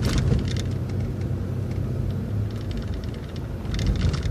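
City transit bus driving along, heard from inside: a steady low engine and road rumble, with bursts of clattering rattles just after the start and again near the end.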